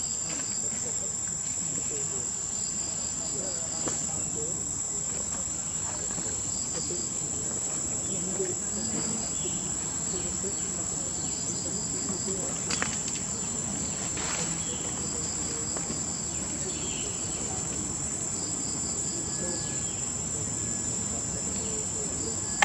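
Insect chorus: a steady high-pitched drone, with a second insect's short chirps repeating in little groups beneath it.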